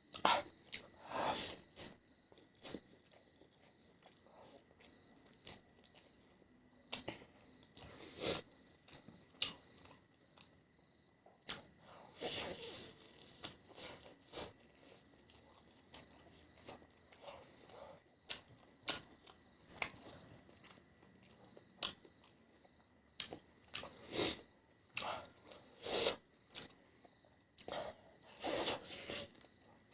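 Close-miked chewing and biting of a person eating beef on the bone, with wet mouth sounds and occasional crunches coming in irregular bursts.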